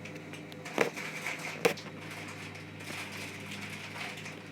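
Two sharp clicks about a second apart, typical of a computer mouse, over a steady low electrical hum.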